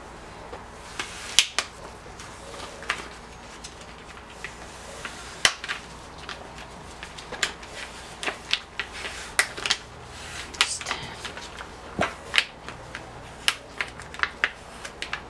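Black iron-on vinyl sheet crackling and crinkling as it is handled and peeled by hand: an irregular string of sharp clicks and snaps with short rustles.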